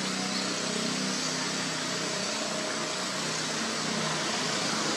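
Steady outdoor noise, an even hiss with a faint low hum underneath; no distinct events.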